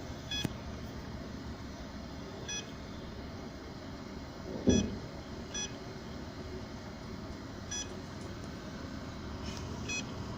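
Seagate external hard drive giving short beeps about every two seconds: the drive is failing to spin up and is not detected by the computer. A dull low thump sounds about halfway through.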